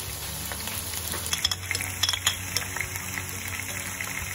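Chicken pieces frying in hot oil in a wok, sizzling steadily, with sharp pops and clicks from about a second in.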